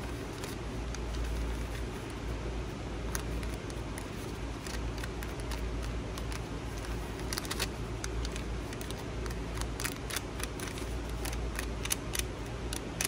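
Ink dauber dabbing and rubbing ink along the edges of a piece of paper: scattered soft taps and light scuffs with some paper rustling, most frequent in the second half. A steady low hum runs underneath.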